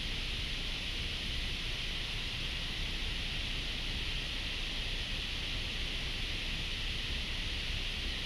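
Steady outdoor hiss with a low rumble underneath, even in level, with no distinct clicks or other separate sounds.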